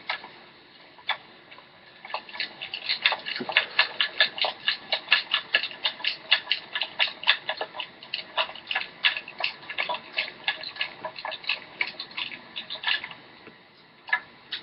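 A quick, irregular run of light clicks, several a second, starting about two seconds in and stopping about a second and a half before the end.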